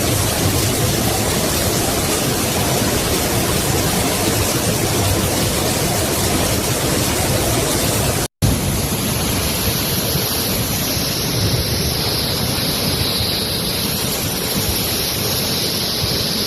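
Loud, steady rushing of floodwater through the streets. It cuts out for a split second about eight seconds in and resumes with a brighter hiss.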